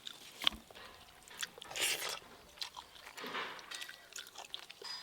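Close-up eating sounds: a person chewing mutton curry and rice, with many small wet mouth clicks and two louder stretches of chewing, about two seconds in and again near three and a half seconds.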